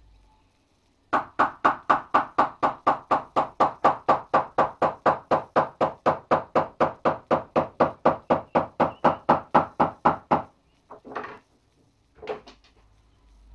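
Small hammer tapping down a folded edge of veg-tanned kangaroo leather on a wooden workbench: an even run of sharp knocks, about four a second, that stops suddenly, followed by two separate short knocks near the end.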